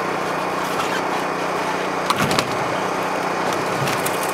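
A small engine running steadily, with a few sharp knocks or clinks about two seconds in and again near the end.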